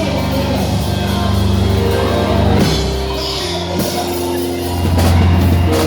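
Band music with drums over sustained low bass and keyboard chords, the chord changing a few times.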